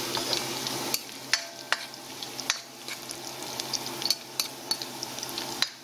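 Garlic and ginger sizzling in hot oil in a stainless steel pot. A plastic spoon stirring them clicks and scrapes against the pot about a dozen times.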